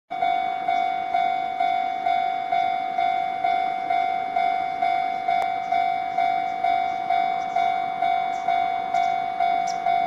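Railway level-crossing warning bell ringing, a repeated ding about twice a second, each stroke fading before the next: the signal that a train is approaching the crossing.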